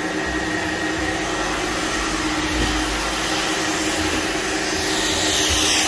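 Carpet-cleaning extractor's vacuum motor running steadily, with a louder hissing rush building near the end.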